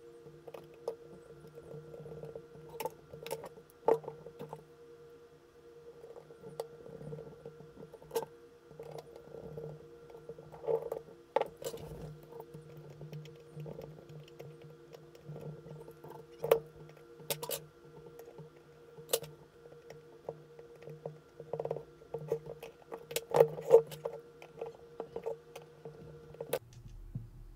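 Small metal camera parts and tools being handled and fitted into a Hasselblad 2000FC body: irregular light clicks and taps, with a steady low hum underneath that cuts off near the end.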